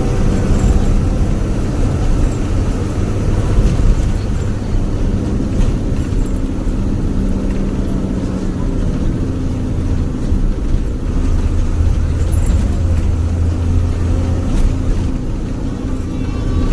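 Old split-windshield bus's diesel engine running on the road, a steady low growl ('ngorok') heard from inside the bus, with road noise under it.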